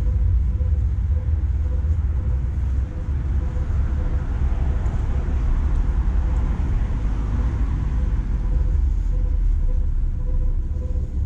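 Street traffic under a constant low rumble, with a vehicle passing by: its noise swells about a third of the way in and fades again after the middle.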